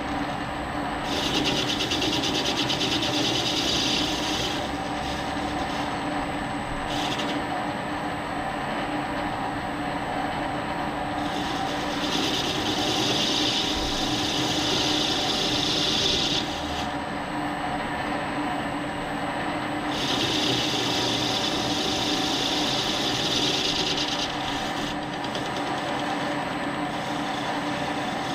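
Warco 280V metal lathe running with a steady motor and gear whine while the cutting tool turns a cast wheel rim. Three times the tool bites into the casting for several seconds, giving a high scraping hiss, and in between only the running lathe is heard.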